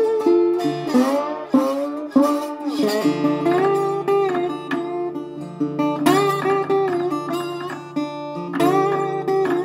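Metal-bodied resonator guitar played blues with a bottleneck slide, fingerpicked. Slid notes glide in pitch over steady bass notes, most of the gliding in the first three seconds.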